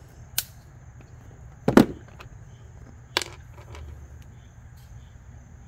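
Sharp clicks and snips from hand tools working on a wire: diagonal cutters trim the blue wire's end and a crimp connector is handled. There are three distinct clicks, the loudest a little under two seconds in, with a few softer taps between.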